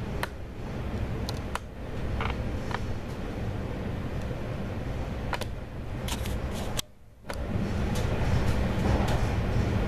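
Passenger train running at speed, heard from inside the carriage: a steady low rumble with a few sharp clicks scattered through it. The sound cuts out for about half a second about seven seconds in, then comes back.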